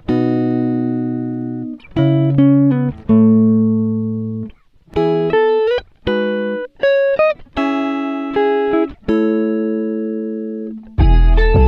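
Background music of plucked string chords, each struck and left to ring and fade. A fuller, bass-heavy passage comes in near the end.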